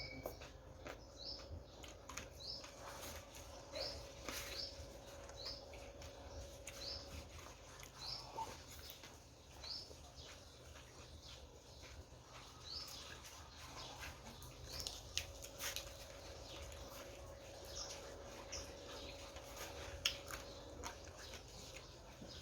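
Faint eating sounds, with chewing and small mouth and utensil clicks scattered irregularly. Behind them a short high chirp repeats roughly once a second.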